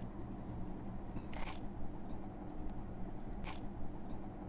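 Canned milk being sipped from mugs: two short slurping sips, about a second and a half in and again near the end, over a low steady hum.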